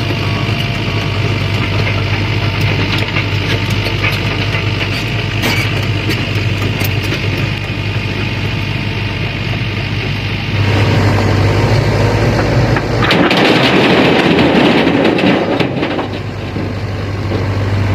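Diesel engine of a Sany SY75C excavator running steadily and getting louder about 11 seconds in, with a burst of harsher noise from about 13 to 16 seconds in and scattered clicks and knocks.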